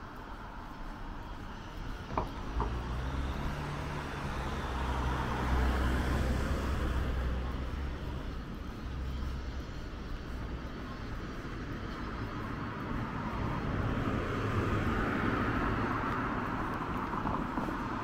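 Road traffic: motor vehicles passing, the sound swelling twice, about a third of the way in and again near the end, with a low engine hum under the first pass. Two short clicks about two seconds in.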